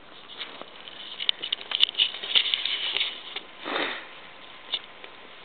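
Pomeranian gnawing and licking a steak bone: about three seconds of wet clicks and crackles from teeth and tongue on bone and meat, then a short sniff at the bone.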